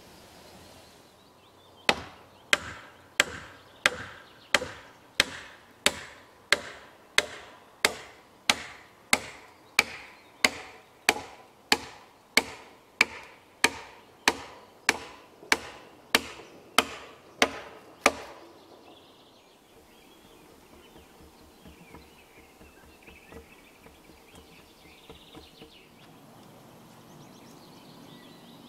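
A hammer pounding on the round-log beams of a timber frame: about two dozen even blows, about one and a half a second, stopping abruptly about two-thirds of the way through.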